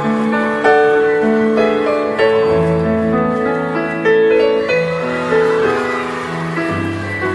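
Instrumental break in a pop ballad, no singing: sustained keyboard notes and chords, a new note or chord every half second or so.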